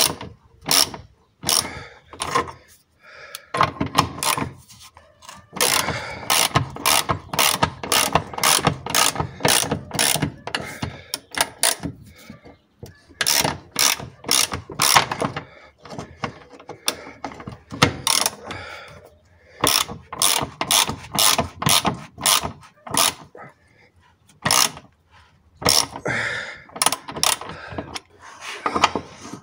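Socket ratchet wrench clicking in fast bursts as it is swung back and forth, running out a suspension bolt on the car's rear axle, with short pauses between the runs of strokes.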